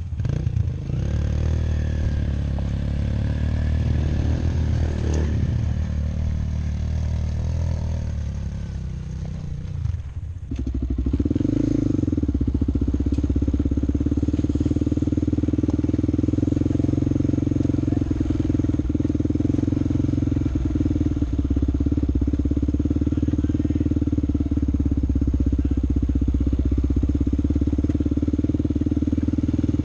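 A vehicle engine running. Its tone eases down over the first ten seconds, then changes abruptly about ten seconds in to a steady, even drone.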